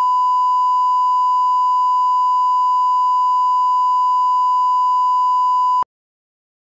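Bars-and-tone line-up signal: a steady 1 kHz reference sine tone, the level-calibration tone that plays with colour bars at the head of a programme tape, cutting off suddenly near the end.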